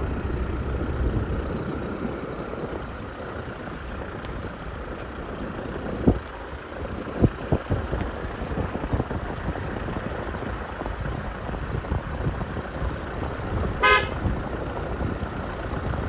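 Skoda Octavia 1.9 TDI diesel car driving by on a narrow road, engine and tyre noise throughout, with a few sharp knocks about six to seven seconds in and one short horn toot near the end.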